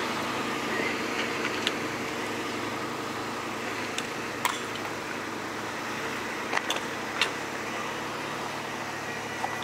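A vehicle engine idling steadily, with a few short sharp clicks or knocks scattered through, the loudest about seven seconds in.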